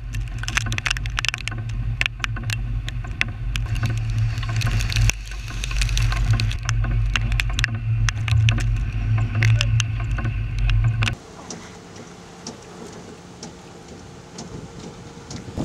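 Vehicle engine running with a steady low hum while raindrops strike the vehicle and camera in many sharp ticks. About eleven seconds in, this cuts off and gives way to a quieter steady hiss of wind and rain.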